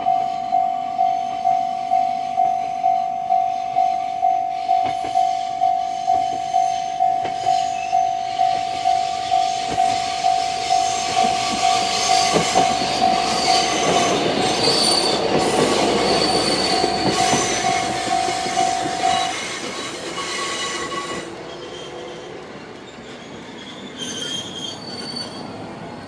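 Level-crossing warning bell in the JR Tohoku (JR East) electronic tone, dinging about twice a second, while a YR-2000-series diesel railcar crosses with rising wheel rumble and squeal on the rails. The bell stops about 19 seconds in as the train clears the crossing, and the railcar's sound fades away.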